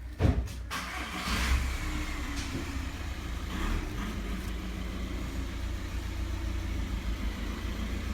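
A thump, then a car engine running with a steady low rumble.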